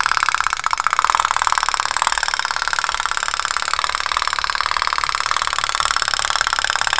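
Toy tin pop-pop boat running, its candle-heated boiler giving a rapid, even popping rattle.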